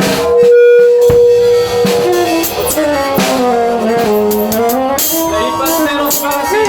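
Live band music: a sliding melodic line over held notes, with a few sharp drum hits and guitar.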